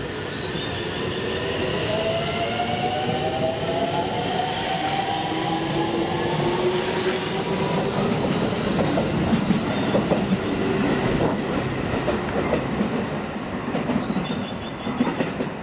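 Aonami Line 1000-series electric train pulling out and accelerating: its traction motors give a whine that climbs in pitch over the first several seconds, then the wheels clatter over rail joints as it picks up speed.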